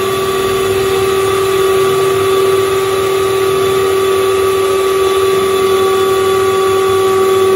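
Electric hand mixer running at one steady speed, its beaters working chunks of butter in a stainless steel bowl: a constant motor whine with a steady hum beneath.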